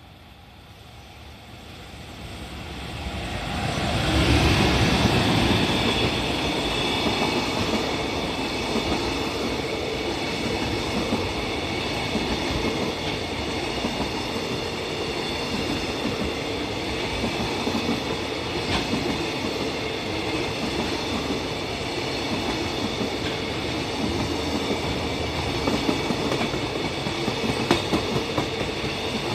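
Freight train hauled by an EF210 electric locomotive passing through a station without stopping. The sound grows over the first four seconds as the locomotive comes by, then settles into a steady run of container wagon wheels on the rails, with a clickety-clack over the rail joints.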